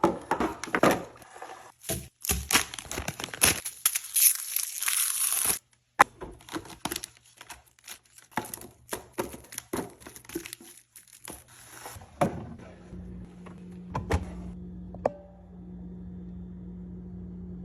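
Plastic packaging crinkling and tearing, with clicks and knocks of items being handled and set down, busiest in the first few seconds. From about two-thirds of the way in the handling thins to a few knocks over a low steady hum.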